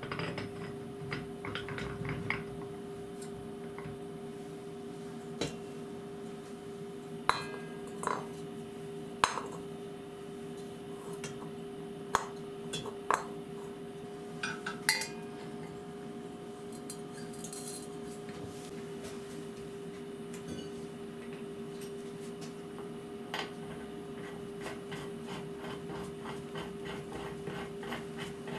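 Metal machine parts being handled and fitted together: scattered sharp clinks and knocks of steel rods, aluminium plates and tools, over a steady hum. Near the end comes a fast run of light ticks.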